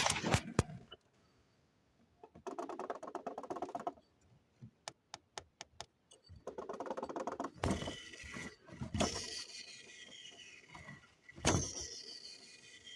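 Rattle from a Denso 7SEU17C air-conditioning compressor, heard in separate spells between clicks, with a whir that falls in pitch near the end. The rattle points to a worn bearing that needs changing.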